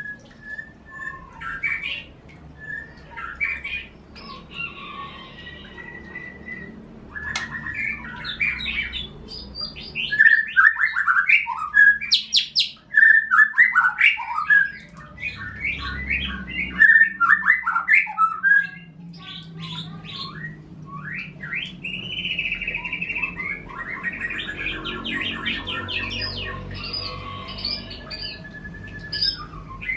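Caged songbirds singing in fast chirping, trilling phrases with short whistles, loudest through the middle: a canary F1 singing as the song tutor (masteran) for a white-rumped shama.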